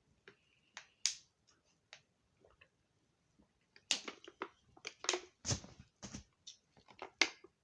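Close-miked mouth sounds of eating and drinking: scattered wet clicks and smacks, getting busier about four seconds in.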